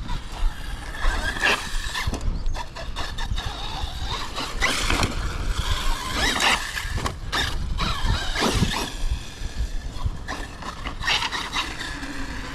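ARRMA Fireteam 6S BLX brushless RC car being driven hard, its motor whining up and down in pitch as it speeds up and slows, with tyres scrabbling on concrete.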